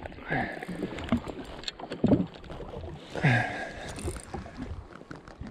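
Small waves lapping against a drifting jet ski's hull, with wind on the microphone and a few brief murmurs of a man's voice.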